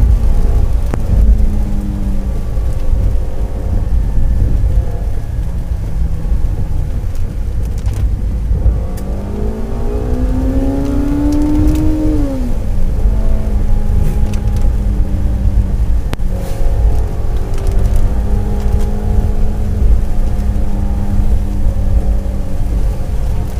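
Car engine running with a heavy low road rumble, heard from inside the cabin while driving on a wet road. About nine seconds in, the engine note rises steadily for some three seconds under acceleration, then falls away sharply and settles back to a steady drone.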